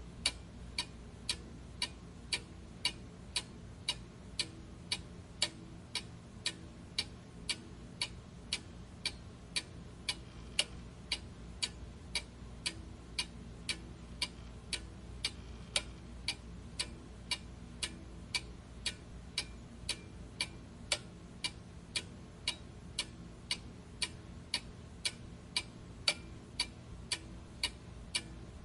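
Steady, regular ticking, about two ticks a second, over a faint low hum.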